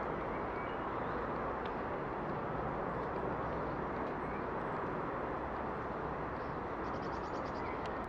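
Steady outdoor background rumble, even and unbroken. Near the end, a short, fast, high-pitched trill.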